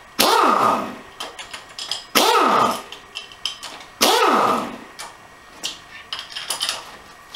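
Pneumatic impact wrench spinning out the AX5 transmission's already-loosened cover bolts in short bursts about two seconds apart. Each burst starts suddenly and falls in pitch as the motor winds down. Light metal clicks come between the bursts, and a fourth burst starts right at the end.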